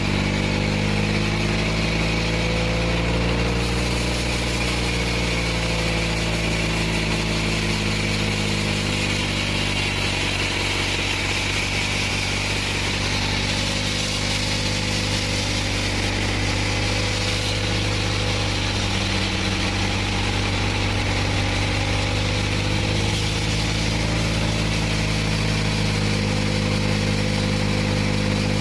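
Homemade band sawmill running steadily: a constant engine drone with a higher hiss above it.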